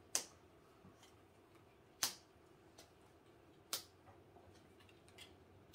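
Seven Wonders Duel game cards being dealt face up and face down onto a table, each one set down with a sharp click: three clear clicks about two seconds apart, then a couple of fainter taps near the end.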